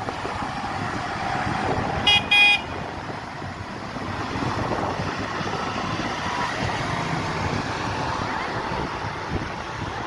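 Light-decorated tractors driving past one by one, engines running with tyre noise on the wet road. About two seconds in, a vehicle horn gives two short toots, the second a little longer; these are the loudest sounds.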